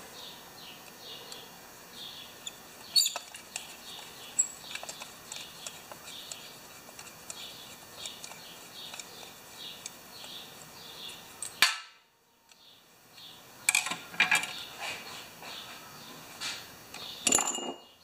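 Small metal clicks and taps as a lawn mower carburetor is worked apart by hand over a steel pan, with a few sharper clinks of parts, the sharpest one near the end. The sound drops out for about a second and a half partway through.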